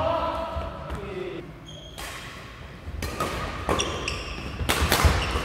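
Badminton rally: sharp racket strikes on the shuttlecock and footfalls on the court, with shoes squeaking briefly on the floor. The hits come thicker in the second half.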